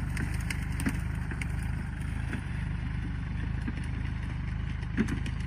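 Kubota L4018 tractor's diesel engine running steadily under load as it pulls a disc plough through soil, with a few sharp knocks, the loudest near the end.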